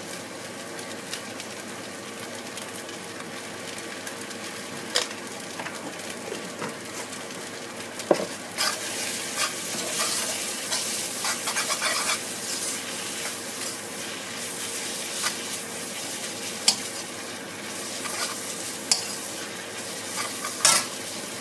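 Glass noodles and scrambled egg stir-frying in a hot wok, with the metal spatula scraping and clinking against the pan now and then. About eight seconds in the sizzling turns much louder and hissier as liquid added to the hot wok boils off in steam.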